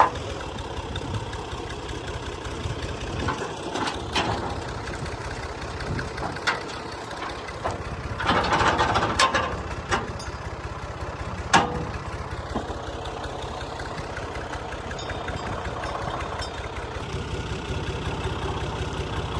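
Combine harvester's diesel engine running steadily. A few sharp metallic knocks sound over it, and there is a louder rattling stretch about eight seconds in.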